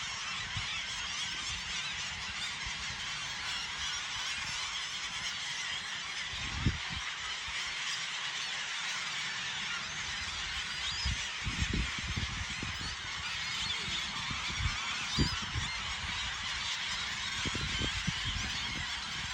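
A huge flock of gulls calling all at once, a dense and unbroken chorus of overlapping squawks. A few short low thumps sound under it.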